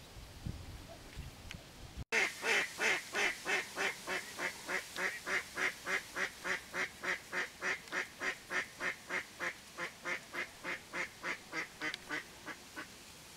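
Duck quacking in a long, even series of about four quacks a second, starting suddenly about two seconds in and fading away until it stops shortly before the end.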